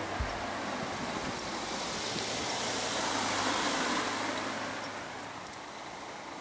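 A car passing by on the road: its tyre and engine noise swells to a peak a little past halfway and then fades away.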